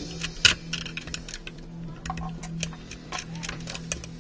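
Small, irregular clicks and taps of parts and tools being handled while an airsoft rifle is taken apart, over a steady low hum.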